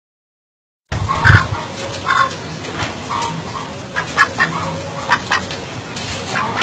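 Domestic duck giving a string of short, soft quacking calls over a steady background hiss, starting about a second in after a brief silence.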